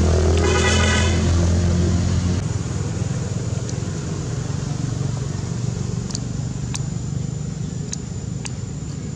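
A motor vehicle engine running close by, loud for the first couple of seconds and then dropping to a lower steady hum, with a brief high tone about half a second in. A few sharp clicks follow later on.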